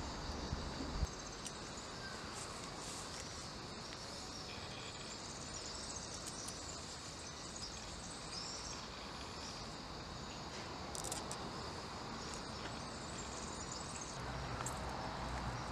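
Steady high-pitched chirring of an insect chorus in summer grass, with a couple of faint clicks about eleven seconds in.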